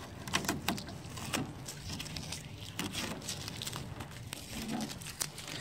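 Masking tape being peeled off a plastic honeycomb grille, giving soft, irregular crackles and little tearing sounds.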